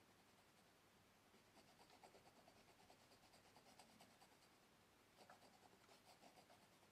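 Faint, rapid scratching of oil pastel strokes on paper, in two spells of quick back-and-forth strokes, the second starting about five seconds in.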